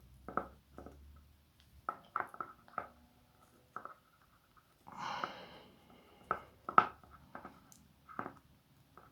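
Faint scattered handling sounds, small clicks and rustles, as a wired cypress branch and its foliage are bent into shape by hand, with one longer soft rustle about five seconds in.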